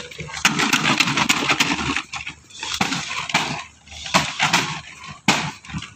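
Pigs grunting and squealing in irregular bursts, with rubber-booted footsteps on concrete.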